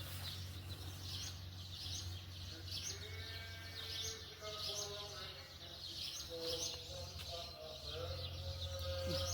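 Outdoor ambience: a bird chirping over and over in short rising notes, over a steady low hum, with faint long drawn-out calls that could be distant animals bleating.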